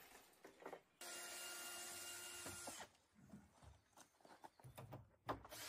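Cordless drill running for about two seconds, driving a screw into a wooden frame, then stopping. Scattered light knocks follow, and there is a sharp click near the end.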